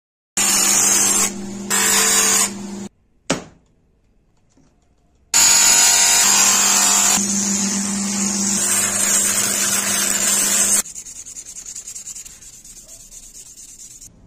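A sanding drum on an electric motor grinds against a knife's goat-horn handle as the handle is shaped, with the motor's steady hum underneath. There is one pass of a couple of seconds with a brief let-up, a sharp click, then a longer pass of about five seconds. After that the grinding stops and a quieter noise fades away.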